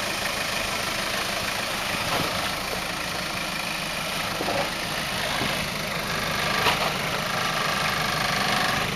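Toyota Hilux Surf turbo's engine running at low revs as it crawls slowly over boulders, with a few sharp knocks, the loudest about two-thirds of the way through.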